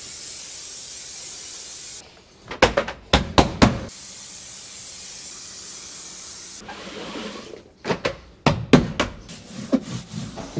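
Aerosol spray adhesive hissing from the can in two long bursts, the first ending about two seconds in and the second running from about four to six and a half seconds. Between them come a few sharp knocks, and near the end a run of knocks and rubbing as the rubber floor matting is laid down.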